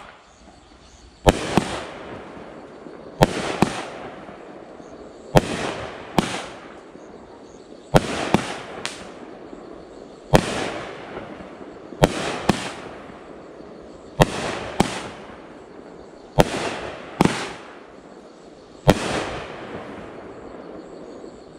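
Ghost Pepper 200 gram multi-shot firework cake firing. There is a sharp bang about every two seconds, sometimes two or three close together, and each one trails off in a fading tail of sound before the next.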